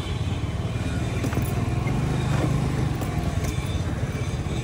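Motor scooter engine running steadily at low speed as it is ridden slowly and pulled up to park, under street traffic noise.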